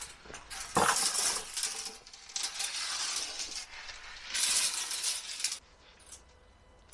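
Steel rebar clinking and scraping as it is handled, in three bursts about a second long each; the last ends a little over five seconds in.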